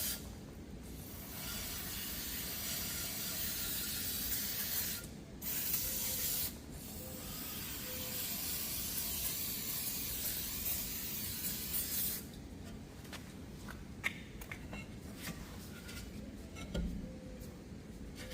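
Aerosol brake cleaner hissing as it is sprayed onto the rear wheel hub after rotor removal, in long spells with two short breaks, stopping about twelve seconds in. Scattered light clicks and taps of tools and parts follow.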